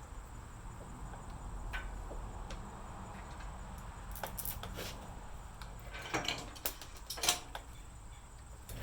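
Scattered metallic clicks and clinks of small hardware being handled as stainless bolts, flat washers and nylock nuts are fitted by hand through a steel mounting plate, with a quick run of clicks about six to seven seconds in, over a steady low rumble.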